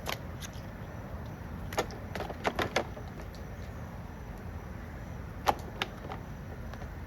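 Metal flathead screwdriver scraping and knocking at a dirty chainsaw part, giving a handful of sharp clicks and taps in small clusters over low, steady background noise.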